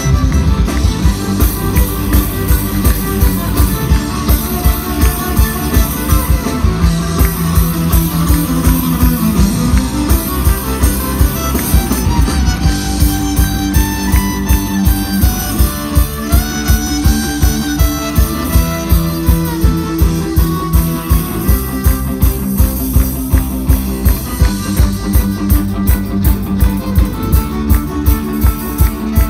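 Live folk-punk band playing loud, with fiddle, guitars and drums over a steady driving beat.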